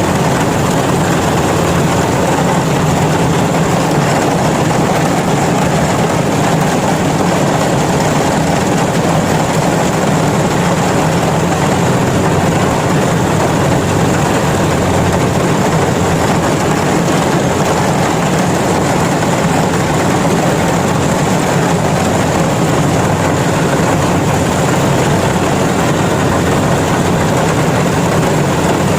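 Yanmar rice combine harvester's diesel engine running steadily, a loud, even drone with no let-up.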